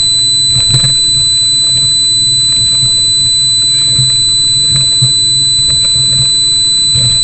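Yamaha 300 four-stroke outboard engines running steadily at speed, under the rush of wind and spray, with a few sudden knocks as the hull slams through the chop. A steady high whine sits over the engine sound.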